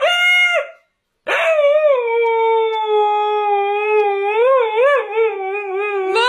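Husky howling. A first howl ends just after the start, and after a short pause one long held howl begins, starting higher, then settling, and wavering in pitch a little later on.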